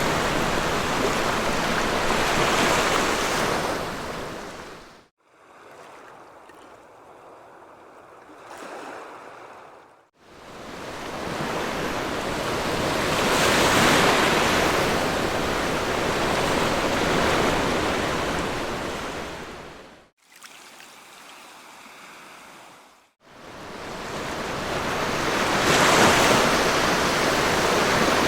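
Sea waves washing onto a beach, a steady rushing surf that swells and ebbs. The sound cuts off abruptly several times into quieter stretches of softer surf.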